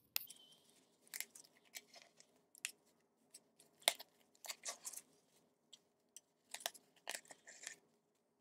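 Yarn strands being pulled out of and pressed into the slits of handheld cardboard weaving looms: faint, irregular clicks, scratches and crinkles of cardboard and yarn.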